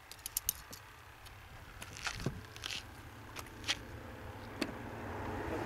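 A scattering of sharp clicks and light knocks, several in quick succession near the start and single ones after, over a low steady rumble; a hiss rises near the end.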